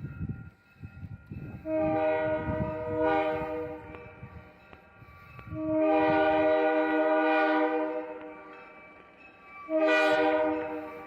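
Train air horn sounding a chord of several notes in three blasts: a short-long pair, then a brief blast near the end. Low rumbling from the train runs under the first few seconds.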